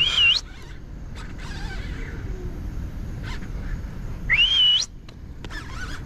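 A man whistling loudly twice, about four seconds apart, each a short whistle that rises, wavers and then sweeps up higher at the end, with a fainter third attempt near the end. It is a signal to his fishing buddy that he has a fish hooked.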